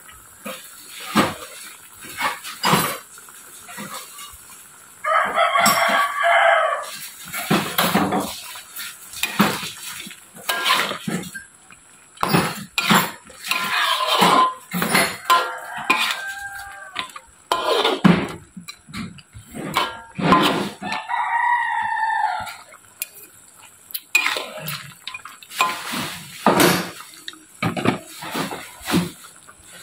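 A spatula repeatedly scraping and knocking against an aluminium wok while stirring a stew, with a rooster crowing three times, the first about five seconds in.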